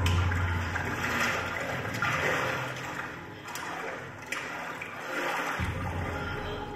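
A performance sound score: a rushing noise that swells and fades in waves over a low hum. The hum drops away about halfway through and comes back near the end.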